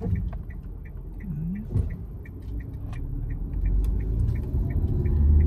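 A car's turn indicator ticking steadily, about three clicks a second, over the low rumble of the engine and tyres heard from inside the cabin. The rumble grows louder near the end.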